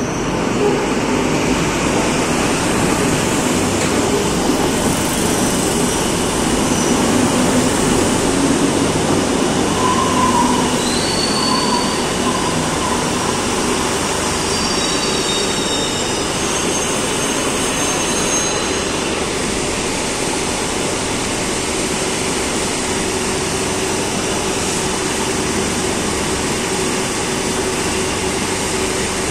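Madrid Metro series 2000B electric train running along the platform, with high wheel and brake squeals about midway as it slows. It then stands at the platform with a steady hum from its onboard equipment.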